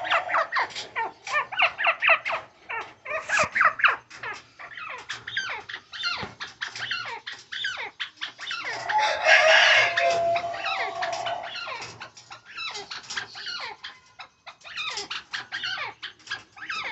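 Animal calls: a dense, continuous chatter of short chirps and squeals, with a longer held call about nine seconds in.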